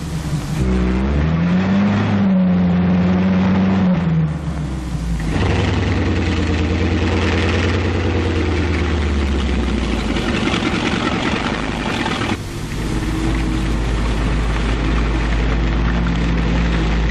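Tank engine running under load and revving, rising and falling in pitch a couple of seconds in and changing pace twice: the M4 Sherman tank dozer at work.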